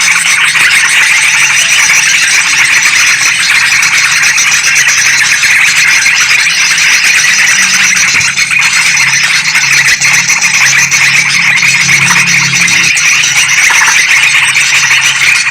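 Dense, continuous chattering calls of bulbuls: yellow-vented bulbuls mixed with noisy sooty-headed bulbuls, a lure recording for attracting trucukan.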